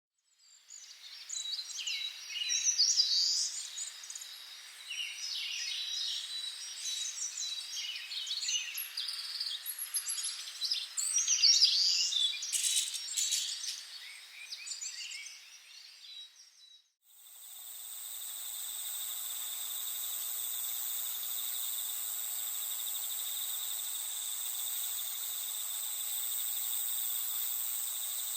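Birds chirping over a faint insect trill. About two-thirds of the way in it cuts abruptly to a steady cricket chorus.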